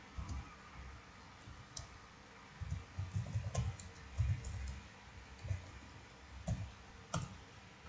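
Computer keyboard being typed on: a scattered, irregular run of faint key clicks with dull low thuds as a command is keyed in.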